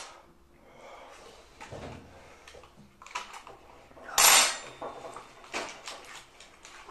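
Tabletop handling sounds: a paper wrapper rustling and the light clicks and knocks of a spoon and glassware, with one louder rustle about four seconds in.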